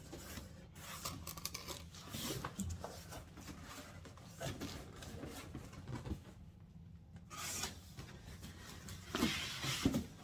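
Cardboard box being opened by hand: cardboard and packing rubbing and scraping, with small knocks. There is a brief lull just past the middle and louder rustling near the end.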